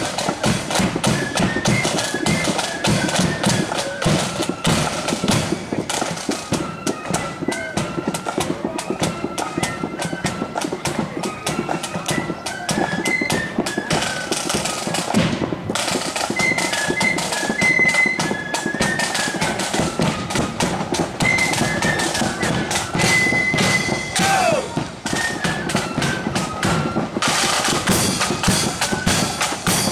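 Marching flute band playing: the flutes carry a stepping melody over steady snare and bass drum beats.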